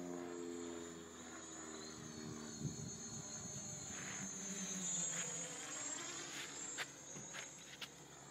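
Distant AeroQuad quadcopter in flight: its electric motors and propellers buzz at several pitches at once, drifting up and down as it manoeuvres. A few brief clicks, one near the middle and two near the end.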